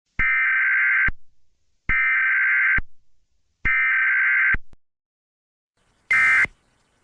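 Emergency Alert System SAME data tones: three bursts of about a second each, a shrill warbling two-tone buzz with equal gaps between them. A shorter burst of the same buzz follows about six seconds in.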